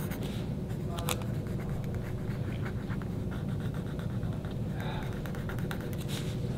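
Pen scratching on spiral-notebook paper in short strokes as someone sketches, over a steady low hum.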